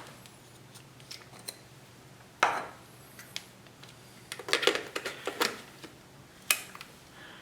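Lens caps and body cap being handled and a Fujifilm XF lens being fitted to a Fujifilm X-Pro2 camera body: scattered small plastic and metal clicks and scrapes, with a louder rustle a couple of seconds in and a sharp click near the end.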